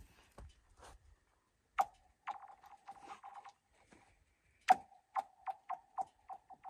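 Objects thrown onto thin lake ice, each landing with a sharp crack and skittering across in a run of quick ticks over a ringing, singing tone. There are two throws, one about two seconds in and another near five seconds.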